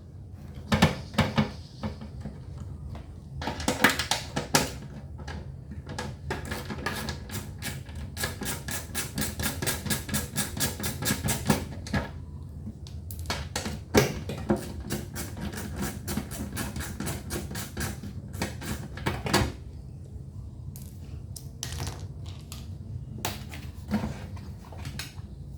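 Hand tools clicking and knocking on the metal parts of a gasoline inverter generator while its fuel tank is being removed: scattered knocks and clatters, with a run of rapid, even clicks lasting a few seconds about a third of the way in.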